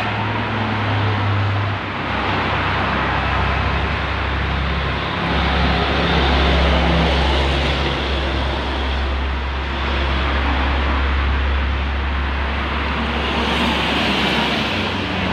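Toll-road traffic: cars and coaches passing at speed, a steady rush of tyres and engines over a deep low rumble.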